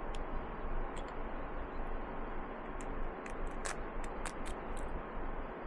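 Scattered light clicks and ticks of small survival-kit items being handled and unwrapped by hand, over a steady low hum.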